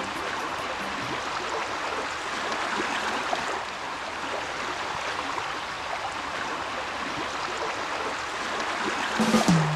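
Steady rush of running water, an even hiss with no rhythm or tune.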